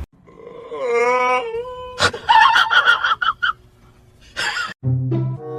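An animal's whimpering, wailing cry that bends in pitch, followed by scratchy, clicky noises. Music with low held notes comes in near the end.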